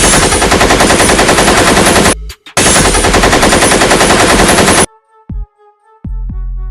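Two bursts of rapid automatic machine-gun fire, about two seconds each with a brief pause between them, at roughly seven or eight shots a second. Music follows near the end.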